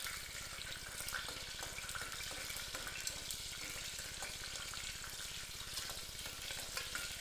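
Chopped green chillies and mustard seeds sizzling in hot oil in a pan, with scattered crackling pops from the seeds.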